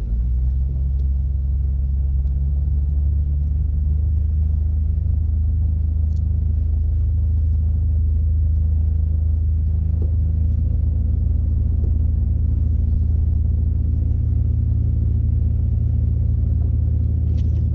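Boat engine running steadily at constant speed, a low, even drone.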